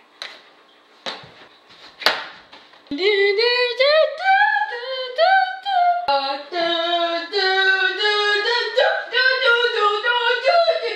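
Three short noisy bursts, then from about three seconds in a high voice singing a wordless tune, its notes sliding up and changing every half second or so.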